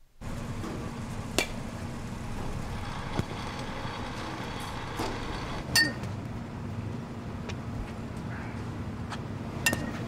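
Baseball bat hitting balls thrown by a pitching machine in a batting cage: three sharp cracks about four seconds apart, the middle one ringing briefly, over a steady low hum.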